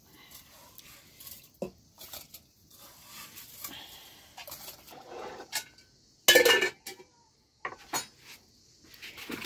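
Metal cooking pots and utensils knocking and clinking, with one loud ringing clang about six seconds in.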